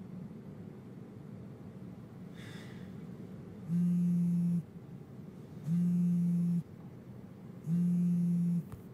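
Mobile phone buzzing with an incoming call: three loud, even buzzes about a second long, two seconds apart, starting about halfway in.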